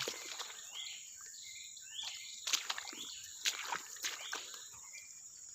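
Steady high buzzing of insects, with a few sudden sharp noises about two and a half, three and a half and four seconds in.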